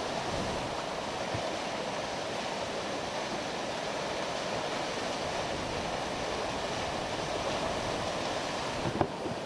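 Swollen river in flood rushing past in a steady roar of water, with a short knock near the end.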